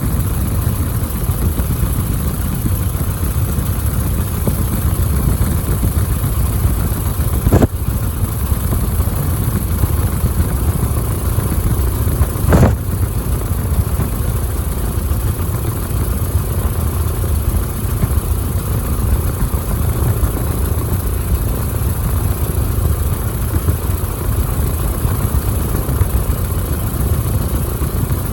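Biplane engine running steadily, heard from the cockpit, with two brief sharp clicks about five seconds apart.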